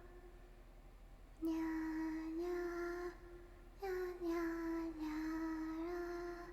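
A young woman's voice making long, sing-song cries while drinking: two drawn-out notes of about two seconds each, the second starting a little higher and sliding down.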